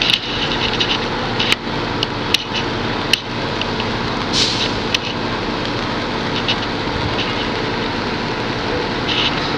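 Steady drone of fire apparatus engines running at the fire scene, with a few sharp clicks in the first few seconds.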